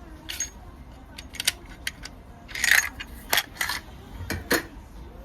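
Irregular metallic clicks and clinks, with a short rattle about halfway through.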